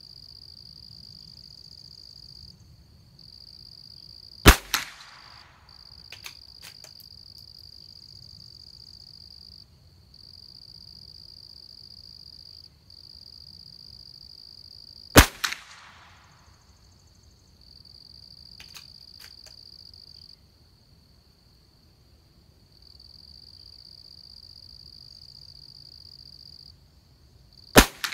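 Three .22 LR shots from a Christensen Arms Ranger rifle, about eleven to twelve seconds apart, each a sharp crack with a short tail. A few light clicks follow the first two shots. Under it all runs a steady high insect buzz that stops and starts.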